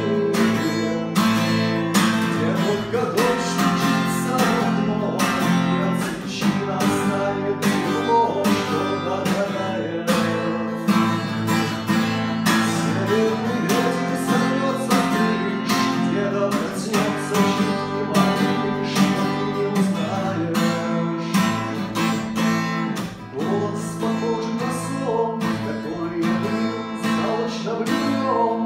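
Cutaway acoustic guitar strummed in a steady rhythm, with a man singing over it in stretches.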